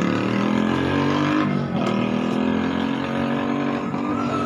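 A motor or engine running with a steady pitched hum; its pitch climbs, drops about halfway through, then climbs again.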